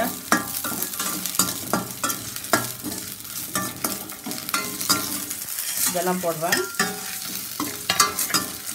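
A steel spoon stirs and scrapes shallots, garlic and dried red chillies frying in oil in a stainless steel kadai. The oil sizzles steadily, and the spoon clicks sharply and often against the pan.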